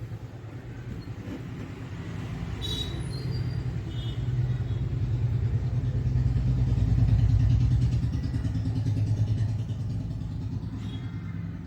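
A motor vehicle's engine running, growing louder to a peak about seven seconds in and then fading, like a vehicle passing by.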